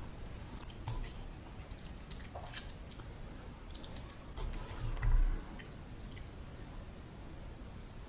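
Close-miked eating of ramen noodles: soft chewing with small wet mouth clicks, and a louder dull thump about five seconds in.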